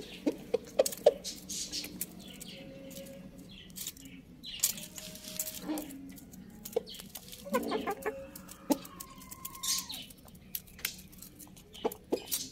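Domestic chickens, a rooster and a hen, pecking at grain: sharp taps of beaks on the floor, with short soft clucks and one longer drawn-out call about two-thirds through.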